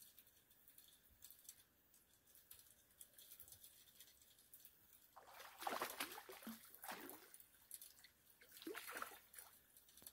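Faint water splashing and trickling in two short bursts, about five and nine seconds in.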